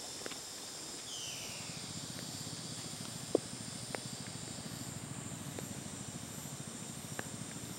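Tropical forest insects buzzing steadily in high, even tones, with a low pulsing hum coming in about a second in, a short falling whistle, and a few sharp clicks.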